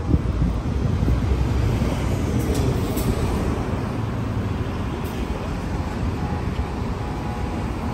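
City street traffic: a steady low rumble of passing cars and buses, heaviest in the first half.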